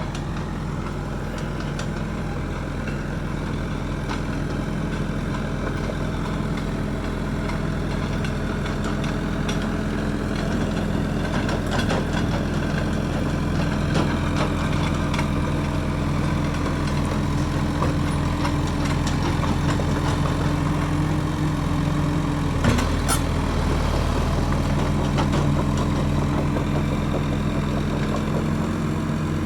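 John Deere 450 engine running steadily, with a brief sharp knock and a short dip in the engine note about 23 seconds in.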